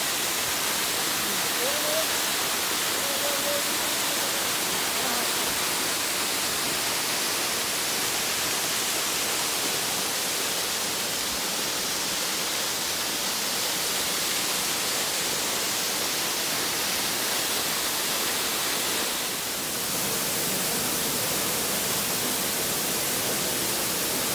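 Waterfall: a steady, unbroken hiss of water falling onto rocks and into a pool, dipping briefly about three-quarters of the way through.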